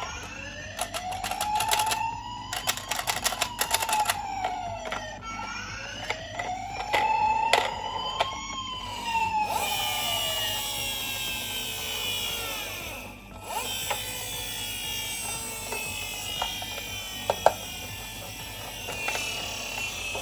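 A toy ambulance's electronic siren wailing in two slow rise-and-fall sweeps, with the clicking and clattering of the plastic mini car rolling down a slope. About halfway through, the siren changes to a higher, slowly falling tone.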